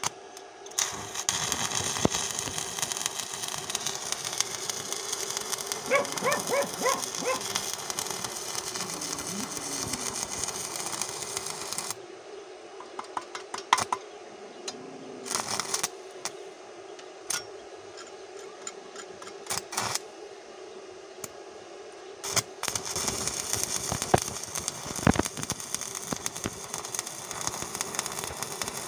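Stick-welding arc from a cheap Wert Mini 200 inverter running a 2.5 mm electrode at about 70 A on a steel pipe: a crackling hiss. About twelve seconds in it drops to scattered crackles, then picks up again near the end. The welder says it welds, but not confidently.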